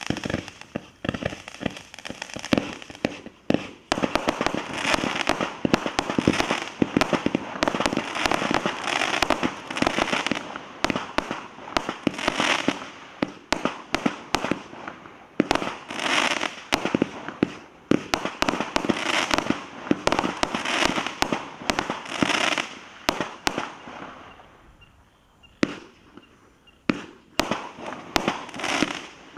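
Multi-shot firework cake firing a rapid, uneven volley of shots and bursting stars. There is a short lull about 25 seconds in, followed by a few more shots.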